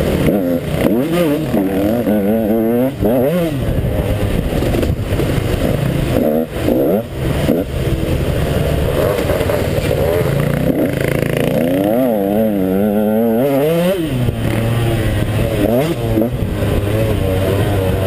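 KTM 150 XC two-stroke dirt bike engine revving up and down again and again as the throttle is worked, with a few brief drops in between and occasional knocks and clatter.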